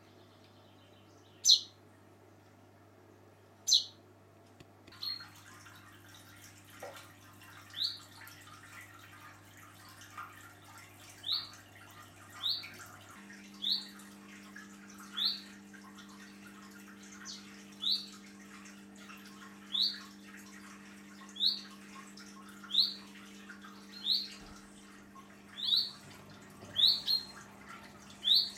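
Chaffinch calls: two loud, sharp calls in the first few seconds, then a long run of short rising calls repeated about every one and a half seconds.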